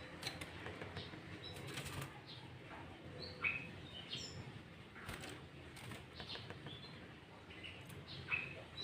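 Sooty-headed bulbul (kutilang) calling in short, separate chirps and whistled notes, some sliding down in pitch, with a few sharp clicks between them.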